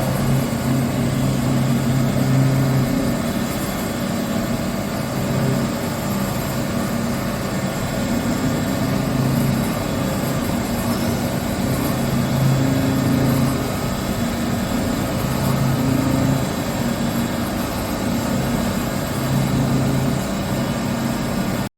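Haas VF-2 CNC vertical milling machine running: a steady mechanical whir with a low hum that comes and goes every couple of seconds.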